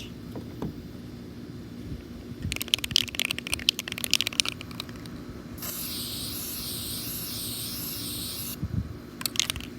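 Aerosol spray-paint can: the mixing ball rattles in a quick run of clicks as the can is shaken for about three seconds, then a steady hiss of paint spraying for about three seconds, then a few more rattles near the end.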